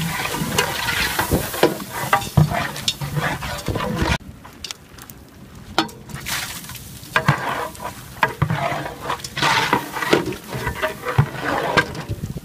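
Ingredients splashing into a large steel cooking pot, then a long metal ladle stirring and knocking against the pot, with a quieter stretch about four seconds in.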